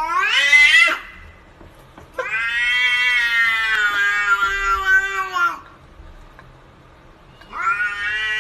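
Domestic cat yowling in a standoff with another cat: a rising call ending about a second in, a long drawn-out call of about three seconds, and another rising call near the end.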